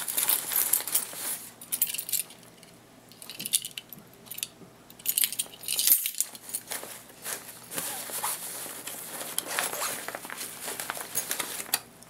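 Hands rummaging in a backpack's organizer pouch full of pens and small items: fabric rustling with small hard objects clicking and clinking in irregular bursts. The handling eases off about two seconds in, then picks up again about five seconds in.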